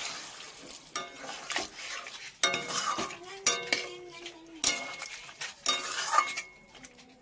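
Flat metal spatula stirring a watery curry in a metal kadhai, scraping and knocking the pan in a series of sharp clinks. Water splashes in at the start and fades within about a second.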